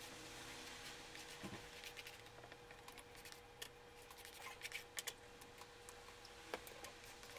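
Faint scratching and a scatter of sharp little clicks as a thin pointed tool scrapes and taps into wet acrylic paint on a stretched canvas, over a faint steady hum.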